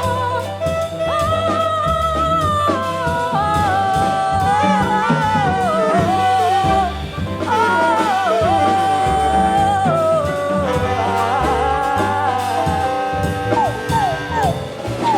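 Live jazz quintet playing: a lead melody of long, bending held notes over piano, double bass and drums. Near the end the lead breaks into a run of short falling slides.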